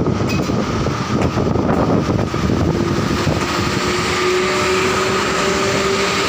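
EP1 electric locomotive pulling a passenger train away from a standstill and rolling past at low speed. A steady high whine runs under the mechanical noise, and from about three seconds in a lower whine rises slowly in pitch as the locomotive gathers speed.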